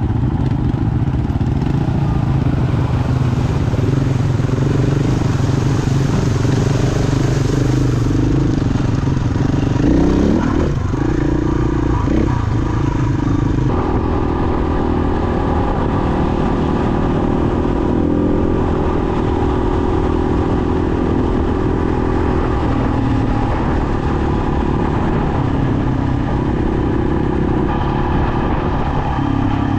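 Motorcycle engine running while the bike is ridden. Its pitch rises and falls with throttle changes about ten seconds in, then it runs more steadily.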